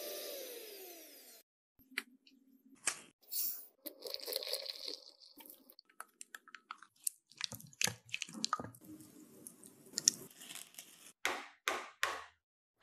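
Bosch electric hand mixer whirring in whipped chocolate cream, its motor note falling as it winds down to a stop about a second and a half in. After that come scattered kitchen handling sounds: clicks and knocks of utensils on bowls, with scraping and rustling as dry powder is stirred into chocolate crumbs.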